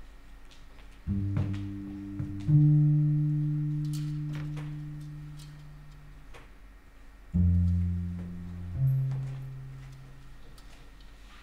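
Slow music of a few low notes, each struck or plucked and then ringing out and fading slowly: two about a second in, two more around seven and a half seconds.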